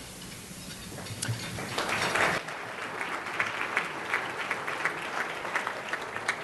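Audience applauding in a hall. The clapping swells to a dense burst about two seconds in, then thins out to scattered single claps.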